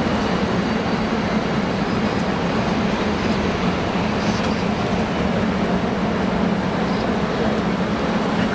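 EF64 electric locomotive standing at the coupling, its on-board equipment running with a steady low hum and an even noise that does not change.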